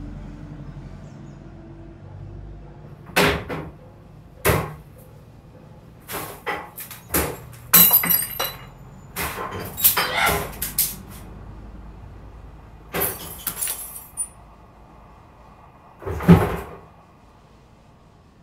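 Irregular bangs, knocks and clattering of furniture and loose objects being handled and thrown about in a small room. The strokes come singly and in quick clusters, and the loudest bang comes near the end.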